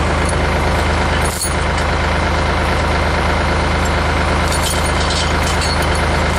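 Tractor engine running steadily, with a few faint clicks over it.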